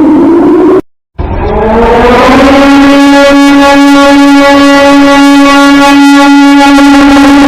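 Civil-defence warning siren. A pitched wail slides downward and cuts off sharply about a second in. After a brief silence a siren starts up, rising in pitch over about a second, then holds a steady, loud tone.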